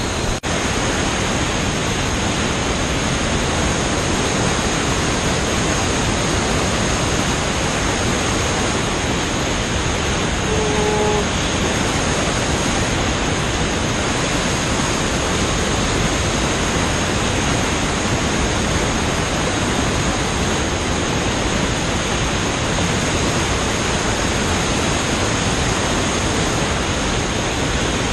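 Loud, steady roar of whitewater rapids pouring over a ledge drop.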